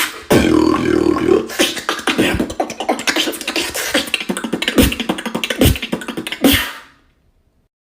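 A person beatboxing: a fast run of percussive mouth sounds, with deep kick-like thumps and sharp snare- and hi-hat-like clicks, stopping about seven seconds in.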